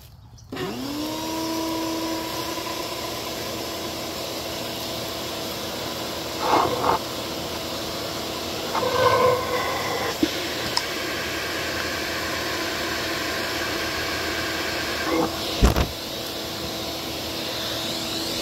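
Vacuum cleaner run in reverse as a blower, switched on about half a second in: its motor spins up with a rising whine and then runs steadily. It is blowing air into a model rocket's body tube to test whether the piston ejection system will push the parachute and nose cone out. A few short louder noises break in, with a sharp thump near the end.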